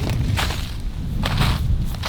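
Footsteps in snow, two steps about a second apart, over a steady low rumble of wind on the microphone.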